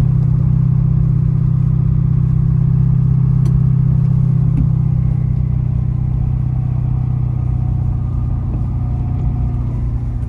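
Ford F-250 pickup's engine running steadily while the truck drives, easing off slightly near the end.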